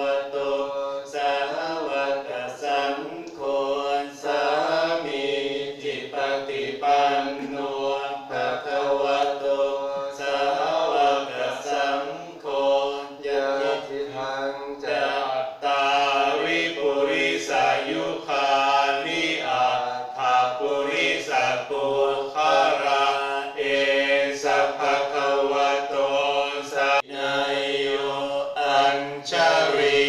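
A group of voices chanting Pali verses in unison, a steady recitation on a few held pitches.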